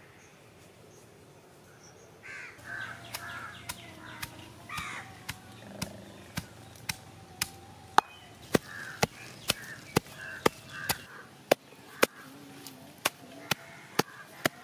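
A pestle pounding garlic and cumin seeds in a stone mortar: sharp, even knocks about two a second, starting about three seconds in. Crows caw now and then over the pounding.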